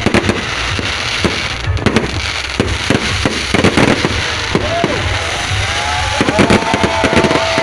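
Fireworks going off: a dense series of bangs and crackles, joined from about two-thirds of the way in by several whistling tones that rise and then hold.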